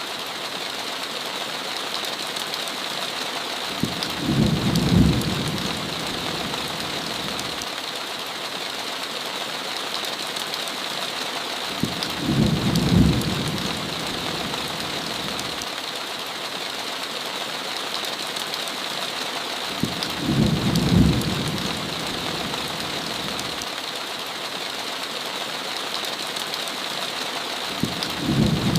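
Steady heavy rain hissing, with a short low thunder rumble about every eight seconds, four in all.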